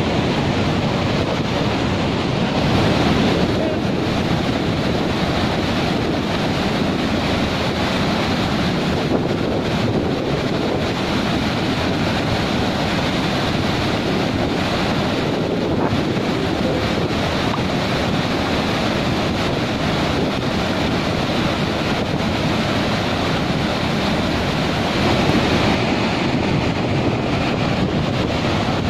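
Debris-laden floodwater pouring over an open dam spillway flap gate: a steady, loud rush of churning water.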